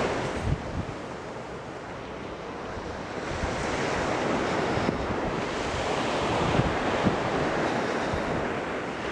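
Ocean surf washing on a beach, dipping briefly and then swelling again about three seconds in, with wind buffeting the microphone in low thumps.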